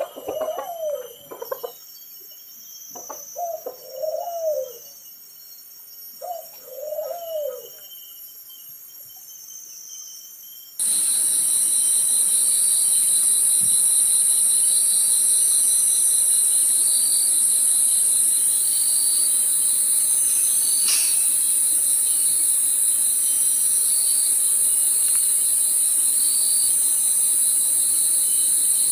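A bird cooing, a few soft calls that rise and fall, over the first eight seconds or so. About eleven seconds in, a loud, steady, high-pitched drone of forest cicadas starts abruptly, with a faint pulsing note, and goes on.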